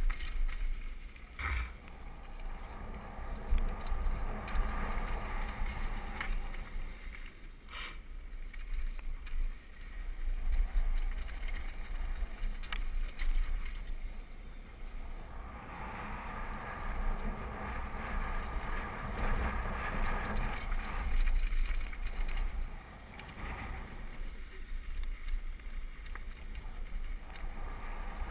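Downhill mountain bike rolling fast over a dirt trail: tyres crunching on dirt and gravel under a steady rumble of wind on the microphone, with two sharp knocks from bumps, one about a second and a half in and one near eight seconds.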